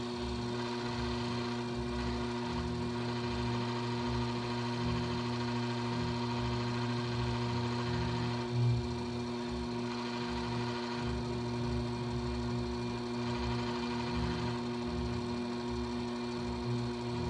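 Electric potter's wheel motor running with a steady hum as the wheel spins, with one brief louder bump about halfway through.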